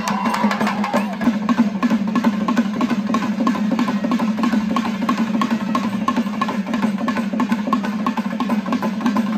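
Festival drumming: fast, dense, sharp drum strokes played continuously, with a steady low tone beneath.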